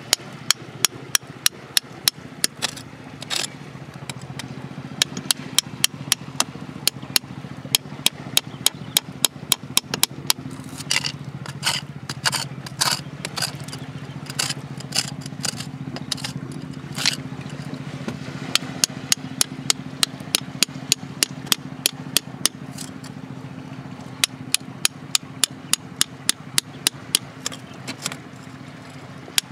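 A small hand tool picking and scraping at rock and gritty sand, making quick, even taps about three a second with scraping in between, over a steady low hum.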